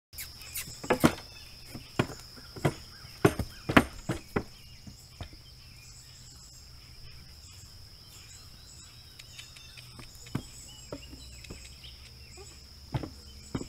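A horse's hooves knocking on a wooden board platform as the filly steps up onto it and shifts her feet: a cluster of sharp knocks over the first five seconds, then a few single knocks later.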